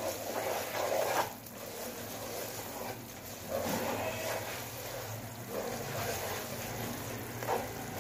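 Sugar syrup with liquid glucose bubbling at the boil in a non-stick pan, stirred steadily with a wooden spoon that scrapes around the pan. The sound swells and eases unevenly with the stirring.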